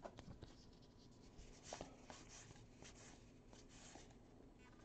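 Faint scratchy rustling and light clicks of a stack of Topps Heritage baseball cards being slid and flipped through by hand.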